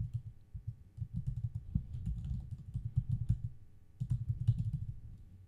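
Typing on a computer keyboard: a quick run of key clicks, with a short lull about three and a half seconds in before the typing resumes.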